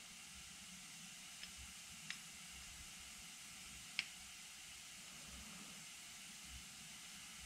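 Very faint steady hiss with three small clicks, the sharpest about four seconds in, from the brass parts of a .50 caliber bullet pen being handled and fitted together by hand.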